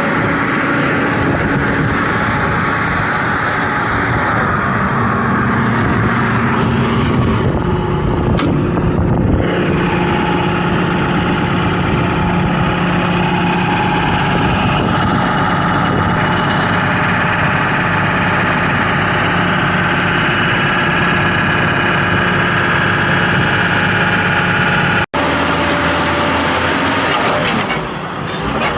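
Caterpillar 320D excavator's diesel engine running steadily.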